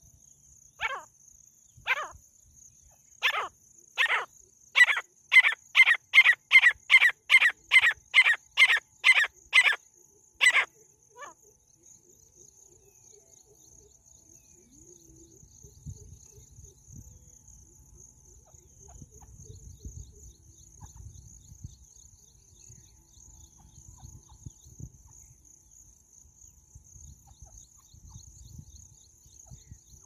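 Female francolin calling: a series of short, sharp calls, first about a second apart, then speeding up to two or three a second before stopping about ten seconds in. A faint, steady, high insect buzz runs underneath.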